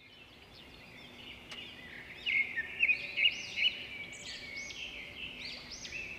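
Birds chirping and singing: many short chirps and arching whistled notes over a steady high background chorus, fading in at the start, with a cluster of louder chirps in the middle.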